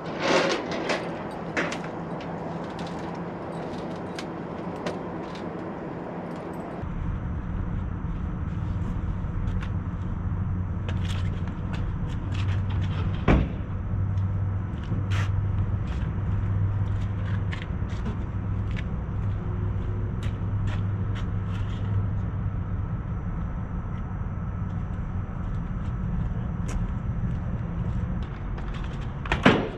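A vehicle engine running steadily, setting in abruptly about seven seconds in, with scattered clicks and knocks throughout.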